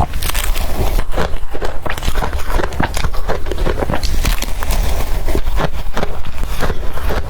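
Close-miked biting and chewing of blender-crushed ice: a fast, irregular run of crisp cracks and crunches with no let-up, over a steady low hum.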